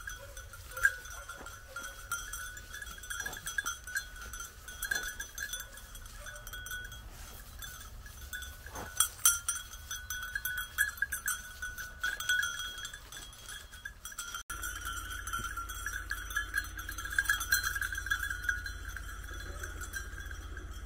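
Bells on hunting dogs' collars ringing steadily as the dogs move about, with a few sharp knocks and rustles.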